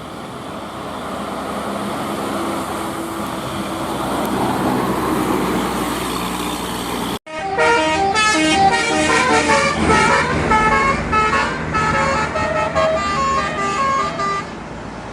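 A vehicle's road and engine noise swells steadily. Then, after an abrupt cut, a bus's Basuri telolet horn, a multi-trumpet musical air horn, plays a quick tune of short stepped notes for about seven seconds before giving way to road noise near the end.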